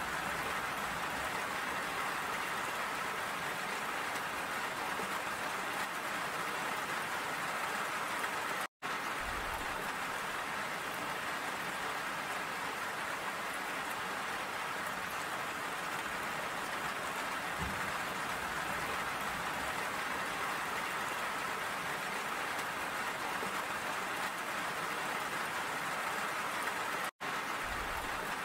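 Steady rain falling. The sound drops out for an instant twice, about nine seconds in and near the end.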